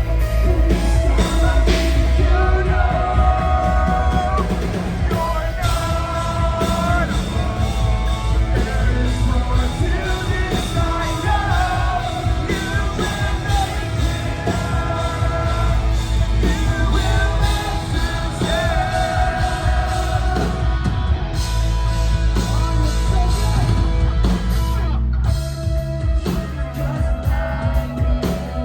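Loud live post-hardcore rock band playing, with sung and yelled vocals over electric guitars, bass and drums.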